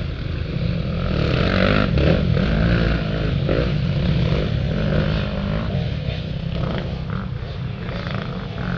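Off-road dirt bike engines revving and changing pitch as racers ride past on the course. Loudest around two seconds in, then easing off a little.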